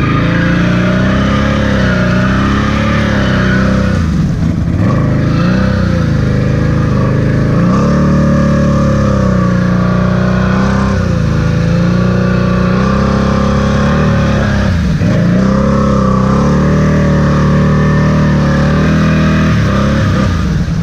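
ATV engine held at high revs as the quad churns through a flooded mud hole, the pitch wavering up and down with the throttle; the revs drop briefly about four seconds in and again near fifteen seconds.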